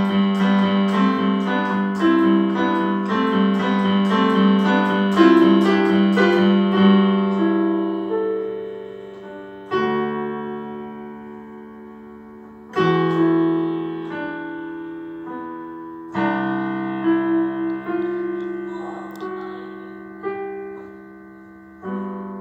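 Piano playing. A steady run of notes lasts about the first eight seconds, then slow chords come a few seconds apart, each left to ring and fade.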